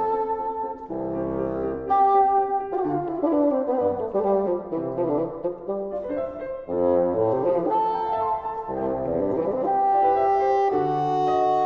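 Bassoon playing with grand piano accompaniment: long held notes alternating with quicker moving passages.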